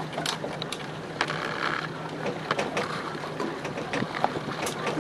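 Hewescraft aluminum boat underway: a steady motor hum with irregular knocks and rattles scattered through it.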